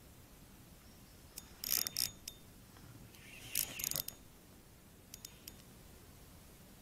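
Spinning fishing reel ratcheting in two short bursts about a second and a half apart, then a few light clicks, as a hooked fish is reeled in.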